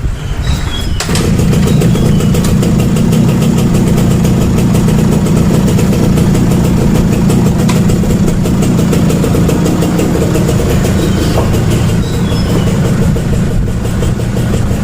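Small two-stroke Suzuki motorcycle engine running. It picks up and gets louder about a second in, then runs steadily; its carburetor has just been cleaned to cure hard starting.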